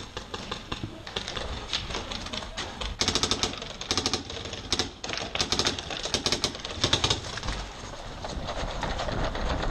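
Paintball markers firing in several rapid strings of shots, the densest bursts starting about three seconds in and again around the middle.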